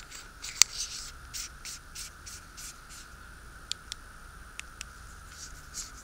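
Threaded aluminium flashlight body being screwed together by hand: a sharp click early on, then a run of short scraping rasps from the metal threads, then a few light clicks.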